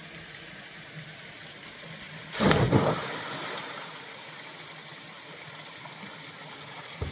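A person jumping into a rock pool: one loud splash about two and a half seconds in, with the water washing on for a moment afterwards.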